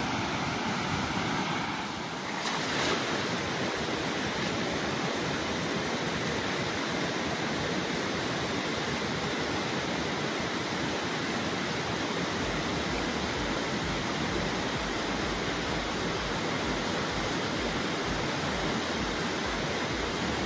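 Steady rush of flowing river water. From about halfway, wind buffets the microphone with a low pulsing rumble.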